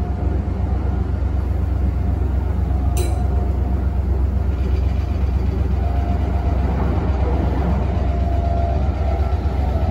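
Cabin running noise of a Meitetsu 3500 series electric train in motion: a steady low rumble of wheels on the rails, with a brief sharp click about three seconds in.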